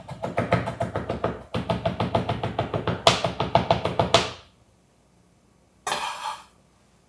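Chef's knife rapidly chopping and mincing garlic or ginger on a cutting board: a fast, even run of knocks for about four seconds with a brief pause near the start. A short swishing noise follows about six seconds in.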